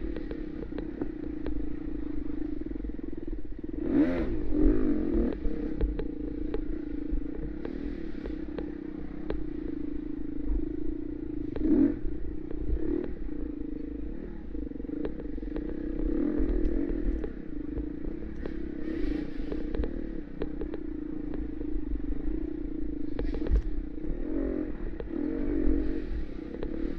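Four-stroke single-cylinder dirt bike engine running at a fairly steady pace under load, swelling briefly a few times as the throttle is opened. Rattles and knocks come from the bike over rough ground, with a constant low rumble underneath.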